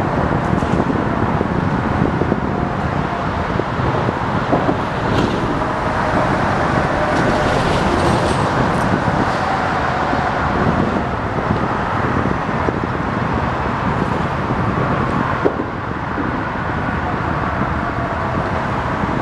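Steady engine rumble with a faint, slowly wavering hum.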